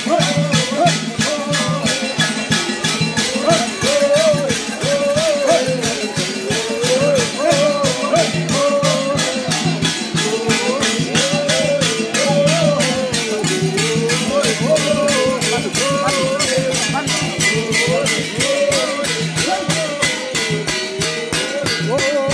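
Voices singing a rising and falling chant over a fast, steady rattling percussion beat.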